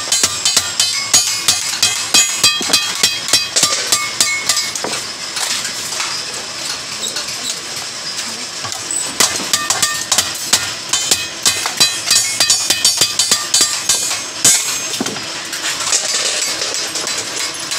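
Hand hammer striking the folded side seam of a rolled galvanized steel sheet laid over a steel bar, closing the seam of a bucket body. A quick run of ringing metallic blows, about three or four a second, easing off for a few seconds midway.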